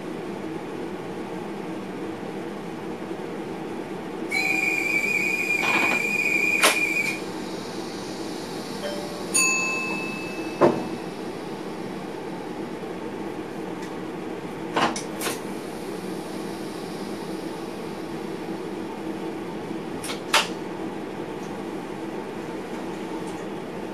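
Train running at speed, heard from inside the driver's cab: a steady low running hum. About four seconds in the noise swells for three seconds with a steady high tone. A short high-pitched tonal sound comes near ten seconds, and a handful of sharp clicks or knocks are scattered through.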